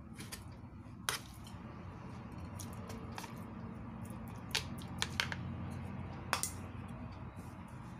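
A few sharp clicks and taps from a kitchen knife on a plastic cutting board and chopsticks against a bowl as raw chicken strips are sliced and then stirred, over a steady low hum.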